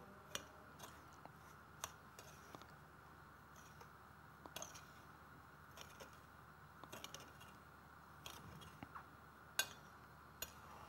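Faint clicks and scrapes of a metal spoon against a ceramic bowl as dry breadcrumbs are stirred, a dozen or so light ticks spaced irregularly over a quiet, steady hum.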